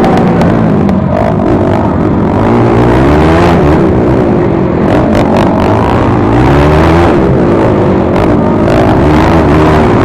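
Yamaha YFZ-450 quad's single-cylinder four-stroke engine running loud under racing throttle, its pitch rising and falling again and again as the rider opens and closes the throttle.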